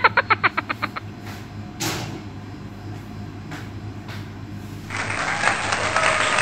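A snippet of bouncy music with quick repeated notes stops about a second in; a few light knocks follow, then applause starts near the end.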